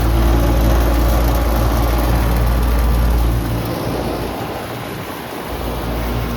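Goodman GSX13 central air-conditioner condensing unit running: a steady electrical hum from the compressor under a deep rush of fan air. The deep rumble drops away for about two seconds past the middle, then comes back.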